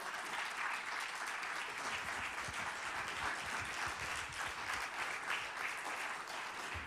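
Applause from a small audience of a few dozen people, a steady, even patter of many hands clapping.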